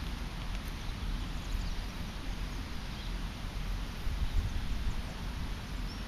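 Dry natural fibres of a hanging-basket liner being pulled and teased apart by hand into a tinder bundle, a faint scratchy rustling over a steady low wind rumble on the microphone.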